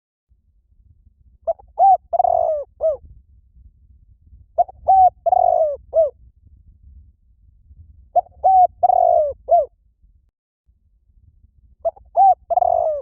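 Spotted dove cooing: four repeated phrases about every three and a half seconds, each a few short coos around one longer, drawn-out coo. It is a lure call for attracting doves.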